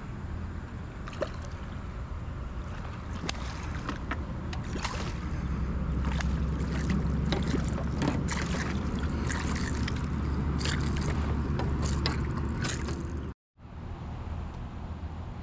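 Wind rumbling on the microphone over open river water, with irregular small clicks and splashes of water around the kayak. The sound drops out for a moment near the end.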